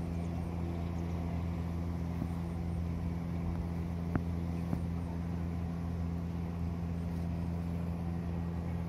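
A steady low machine hum at one unchanging pitch with its overtones. Two faint ticks come about four seconds in.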